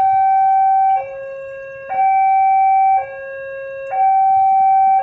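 Railway level-crossing warning alarm sounding its two-tone electronic signal, alternating a louder high tone and a softer low tone, each held about a second. It sounds while the barrier is down for an approaching train.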